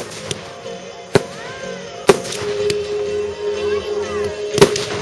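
Aerial firework shells bursting: four sharp bangs a second or so apart, the loudest near the end, with music playing underneath.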